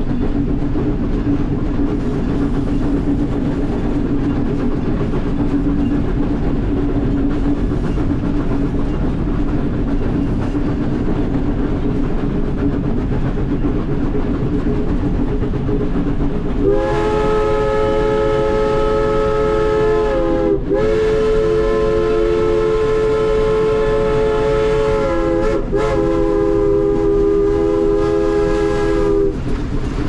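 Steady running noise in the cab of a Baldwin K-36 2-8-2 narrow-gauge steam locomotive. Past the halfway point its steam whistle sounds several notes at once, blown as three long blasts with only brief breaks between them, about twelve seconds in all.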